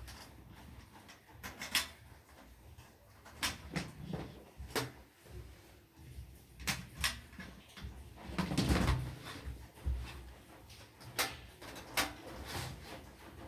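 Irregular clicks and knocks of plastic vacuum-cleaner parts being handled and fitted together, with a longer scraping rustle a little past the middle.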